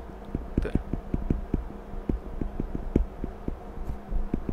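A stylus tapping and stroking on a tablet screen while handwriting Chinese characters: a quick, fairly even run of soft, low knocks, about four a second.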